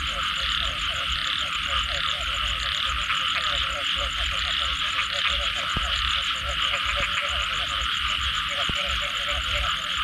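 A dense chorus of many frogs calling at once after rain, an unbroken wall of calls with rapid repeated croaking notes in a lower voice running through it.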